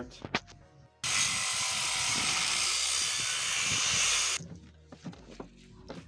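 Angle grinder cutting through the steel casing of a car oil filter: a steady, loud grinding noise for about three and a half seconds, starting about a second in and stopping abruptly, followed by faint knocks and rustling.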